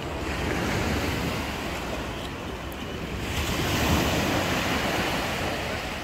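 Black Sea surf: small waves breaking and washing up the shore, swelling twice, the louder wash about four seconds in, with wind rumbling on the microphone.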